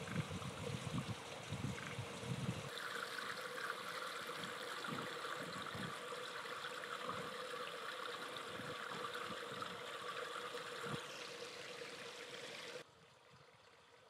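Steady trickle of running water at a pond, with low irregular thumps during the first few seconds. The sound changes abruptly about three seconds in and drops suddenly to a faint hiss near the end.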